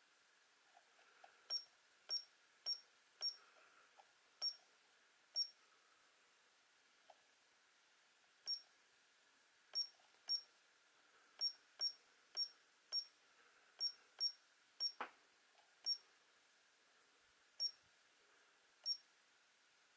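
Short high-pitched key beeps from an RC car pistol-grip transmitter, one for each button press as its settings menu is stepped through, about twenty at irregular intervals. A single louder click comes about three-quarters of the way through.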